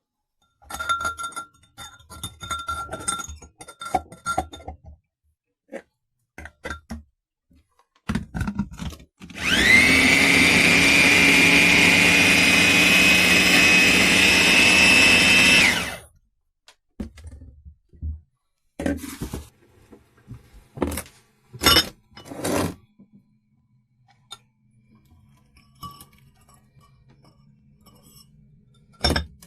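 Wancle 350 W electric food chopper's motor spinning up with a rising whine, running steadily for about six seconds, then cutting off. Before and after it come clicks and knocks of the parts being handled.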